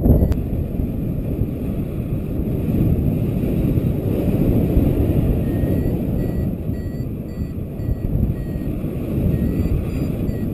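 Wind rushing over the microphone in flight, with a paragliding variometer beeping in short pips about twice a second from about halfway through, its climb tone signalling rising air.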